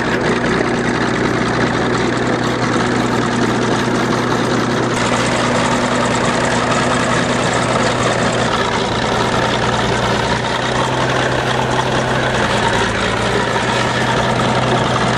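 Engine running steadily at an even speed, with a constant low drone.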